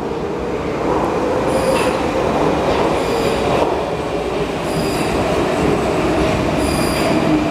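A Prague Metro 81-71M train running along the platform with a steady rumble and motor whine. Four brief high-pitched wheel squeals come at intervals of about one and a half to two seconds.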